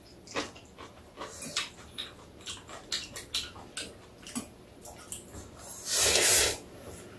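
A person slurping a mouthful of bibim noodles, one loud slurp of under a second about six seconds in, amid short clicks of chopsticks against bowls and the small smacks of eating.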